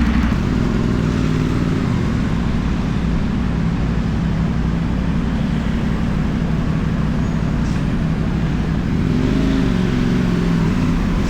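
CFMoto 450NK's parallel-twin engine running steadily through a LeoVince aftermarket exhaust, its note shifting slightly about nine seconds in.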